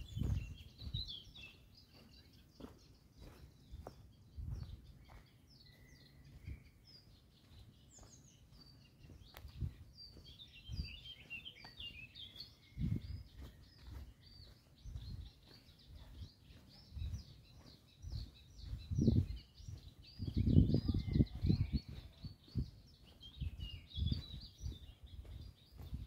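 Footsteps of a person walking along a forest path, with songbirds chirping and singing high and busy throughout. The steps come at irregular spacing, with a louder run of them about twenty seconds in.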